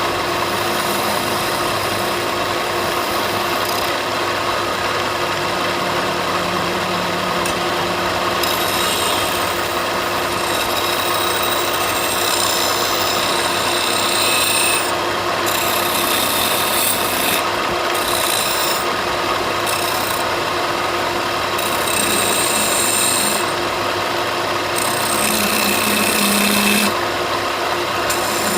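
A power tool working wood, running steadily throughout with a constant motor hum and an abrading, scraping noise whose high end comes and goes as the tool moves over the timber.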